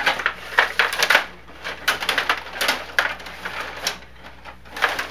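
Irregular plastic clicks and clacks from a Stiga table hockey game in play: rod-controlled plastic players, the puck and the boards knocking against each other, several knocks a second.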